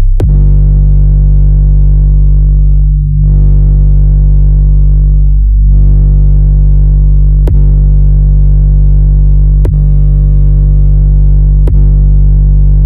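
Very loud synthesized deep bass test tone held steady with many overtones above it. It dips briefly twice, then in the second half it is cut by a sharp click about every two seconds as the tone restarts.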